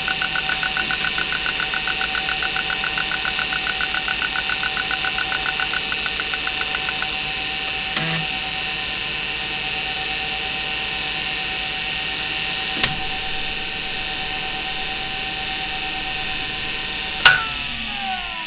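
Maxtor 8051A 41 MB 3.5-inch IDE hard drive (3484 rpm): for about the first seven seconds its heads seek with rapid, even ticking, then the drive idles with a steady spindle whine, its bearings not in good shape, broken by a couple of clicks. Near the end comes a loud click and the spindle starts to spin down, the whine falling in pitch.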